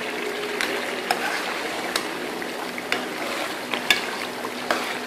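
Mutton curry bubbling and sizzling in a steel karahi as it is stirred, with a metal ladle clinking and scraping against the pan in a few sharp clicks.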